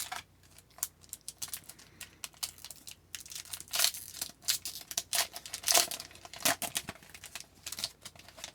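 Crinkly foil wrapper of a hockey card pack being torn open and handled: a run of quick crackles and rustles, busiest in the middle.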